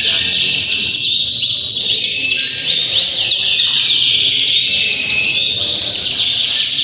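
Several domestic canaries singing at once: a dense, continuous stream of fast, overlapping trills and chirps.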